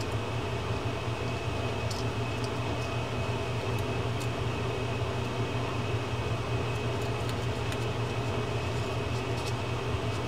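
Steady low mechanical hum of background machinery, with a few faint, small clicks as parts of a baitcasting reel's side plate are handled.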